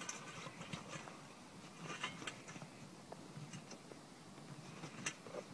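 Faint, scattered rubbing and clicking handling sounds, from hands working an ATV tire and inner tube onto the wheel rim.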